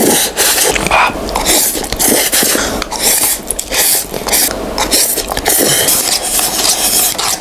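Close-miked slurping and chewing of instant cup noodles eaten with a plastic fork, in irregular wet strokes.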